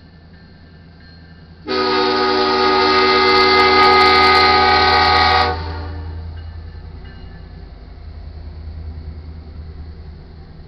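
Lead locomotive's air horn, on a Union Pacific EMD SD70ACe, sounding one loud, steady, multi-note blast of about four seconds, the last long blast for the grade crossing as the engine reaches it. Under it the locomotive's diesel rumble swells as it passes and then fades.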